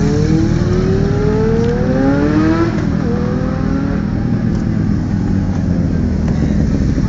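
Motorcycle engines idling steadily while one motorcycle accelerates away. Its engine note climbs, drops at a gear change just under three seconds in, and climbs again in the next gear.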